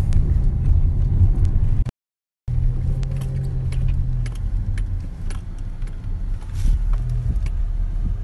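Low, steady rumble of a car's engine and tyres heard from inside the cabin while it drives slowly, with scattered small clicks and rattles. The sound cuts out completely for about half a second near two seconds in.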